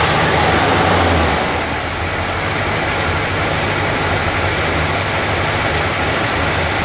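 1960 Chrysler 300F's 413 cubic-inch cross-ram V8, fed by two four-barrel carburetors, idling smooth just after a start. It runs a touch louder for the first second and a half, then settles to a steady idle.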